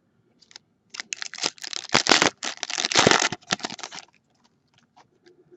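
Crinkling and tearing of a baseball card pack's foil wrapper as it is opened, in a dense run of rustling for about three seconds, then a few light clicks and taps as the cards are handled.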